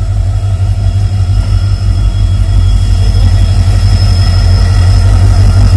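EMD diesel locomotive engine humming at idle: a steady, deep drone with a faint high whine over it, growing slightly louder.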